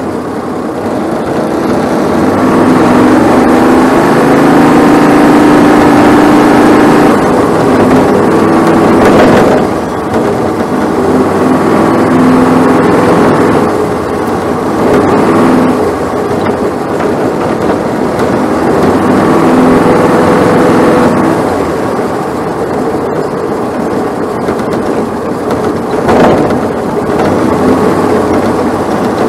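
Race-car engine, a Briggs & Stratton 570cc Vanguard in a Bandolero, heard from inside the car while racing. It pulls hard on the straights and eases off for the turns, with the sound swelling and dropping twice. There is a sharp knock near 9 seconds and another near 26 seconds.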